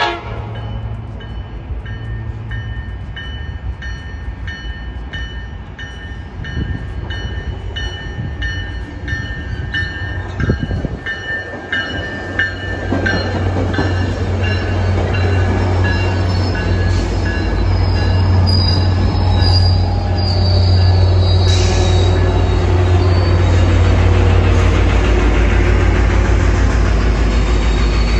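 Tri-Rail diesel commuter train arriving at the station: a bell dings about twice a second while it approaches, then the bilevel coaches pass with rail noise and squealing wheels, and the locomotive's steady diesel engine grows louder as it draws level near the end.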